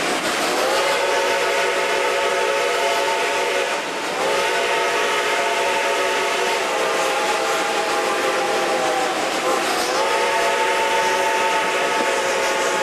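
Steam locomotive chime whistle blowing three long blasts, each sliding up in pitch as it opens, the middle one the longest, over the steady running noise of the train and its coaches.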